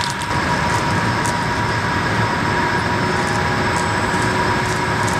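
Steady industrial machinery noise in a factory hall: an even rumble and hiss with a constant high whine, plus a few faint crackles.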